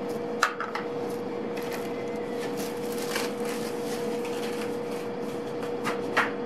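A hand stirring and rubbing bakpao dough flour, just wetted with milk, in a stainless steel bowl: a soft, steady scraping rustle, with a couple of sharper clicks against the bowl about half a second in and near the end, over a steady hum.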